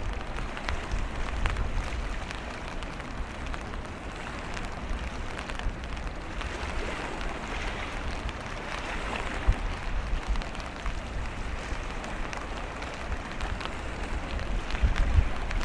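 Wind gusting on the microphone, a low rumble strongest at the start and again near the end, over a steady hiss of rain with scattered drop ticks.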